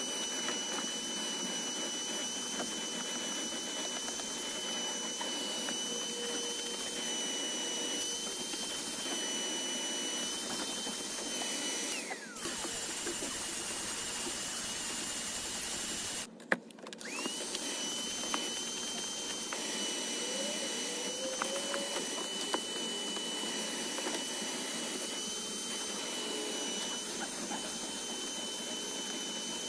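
Vacuum cleaner motor running with a steady high whine. About twelve seconds in it is switched off and its pitch falls away, then a few seconds later it starts up again, quickly rising back to pitch, and runs on.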